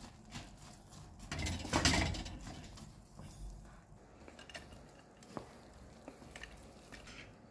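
Wooden spatula stirring and scraping a sticky rice cereal mixture in a stainless steel pot, loudest about two seconds in. Then a few light clicks as the mixture is scraped out of the tilted pot into a glass baking dish.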